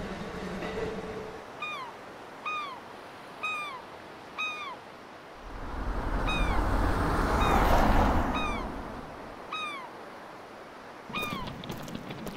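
Gulls calling: short, sharply falling mewing cries, about one a second. In the middle a swell of rushing noise rises and fades away.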